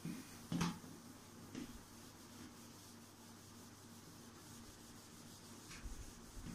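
Faint rubbing of a whiteboard eraser wiping across a whiteboard, with a few short knocks in the first two seconds and another near the end.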